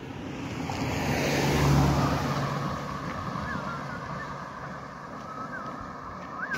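A car passes close by. Its engine and tyre noise swells to a peak about two seconds in, then fades as it drives off up the road.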